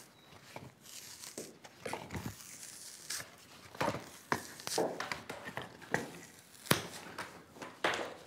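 Thin chestnut-wood strips (basket splints) being split and scraped by hand with a blade. Irregular tearing and scraping strokes with sharp cracks of wood fibre, the sharpest about two-thirds of the way in.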